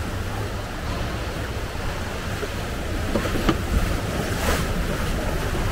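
Churning, rushing water of a flume ride's channel around the boat, with a steady low rumble of wind on the microphone. A sharp knock stands out about three and a half seconds in, and another about a second later.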